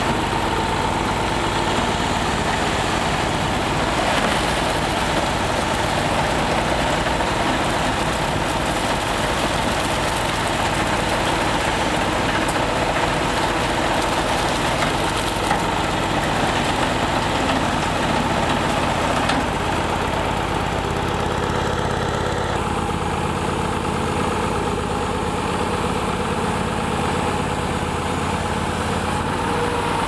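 Machinery engines running steadily near idle: the Ford 550 backhoe's engine powering the hydraulic drive of a Teagle Spiromix concrete mixer, with a Dingo mini skidsteer's engine close by. The sound grows a little duller about two-thirds of the way in.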